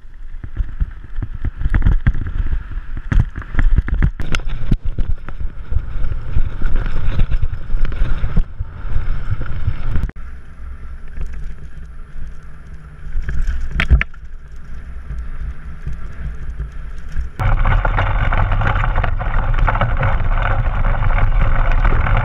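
Mountain bike ridden fast over a dirt trail, picked up by a camera mounted on the bike: a rumbling rush of air over the microphone with irregular knocks and rattles as the bike jolts over bumps. Near the end the sound changes suddenly to a steady, loud rushing noise.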